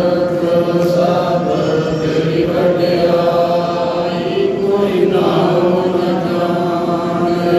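Sikh devotional song in Punjabi: a chanted, sung vocal line held over a steady, sustained accompaniment tone, continuous throughout.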